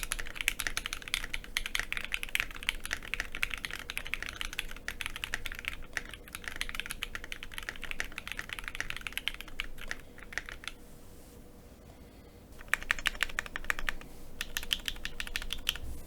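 Fast typing on a mechanical keyboard with Akko Rose Red linear switches, a dense run of key strikes with the deep 'thocc' sound these switches are known for. The typing stops briefly about eleven seconds in, then starts again.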